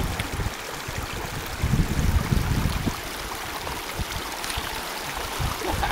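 Creek water running and trickling over rocks, a steady rushing noise with irregular low rumbles underneath.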